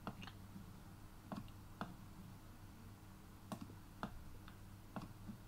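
Computer mouse left-button clicks: about eight faint, short clicks at irregular intervals.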